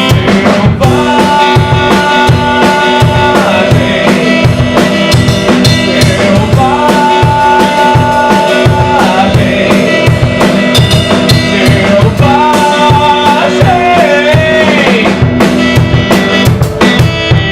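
Music with a drum kit playing a steady beat, bass drum and snare, under long held lead notes that slide in pitch near the end.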